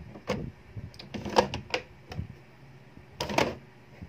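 Irregular clicks and light knocks from small objects being handled at close range, coming in a few separate clusters, with the loudest around the middle and near the end.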